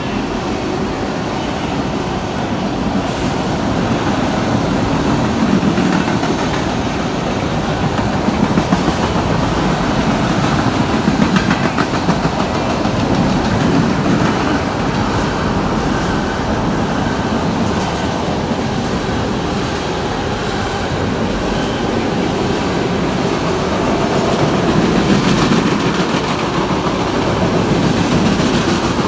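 Freight train of tank cars rolling past below, a steady rumble of steel wheels on rail with a clickety-clack of wheels over the rail joints.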